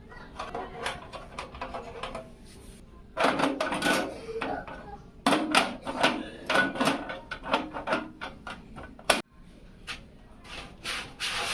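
PC parts and case hardware being handled and fitted: irregular runs of clicks, knocks and rattles of hard plastic and metal, with one sharp snap about nine seconds in.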